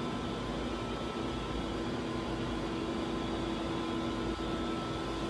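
Steady mechanical hum with a few unchanging tones over an even hiss, such as an air-handling unit or other running machine gives off.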